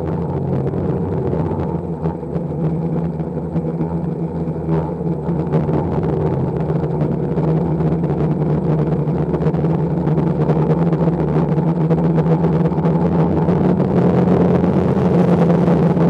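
Multirotor octocopter's motors and propellers humming, heard through its onboard camera: a steady hum with several pitches, growing a little louder toward the end.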